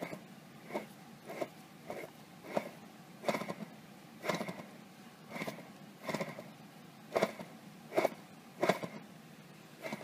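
Rear extension-case bearing of a Subaru Impreza WRX STI six-speed manual transmission being turned by hand, giving a short burst of noise with each turn, about two a second and uneven, loudest about seven to nine seconds in. This bearing is where the transmission's abnormal noise comes from.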